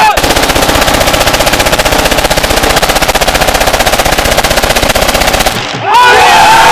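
Celebratory automatic gunfire: one long, continuous burst of very rapid shots that cuts off suddenly about five and a half seconds in, and a crowd starts shouting and cheering right after.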